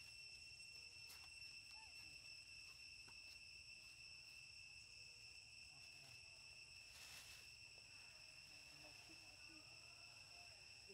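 Faint, steady, high-pitched insect drone: a continuous unwavering whine from the surrounding forest.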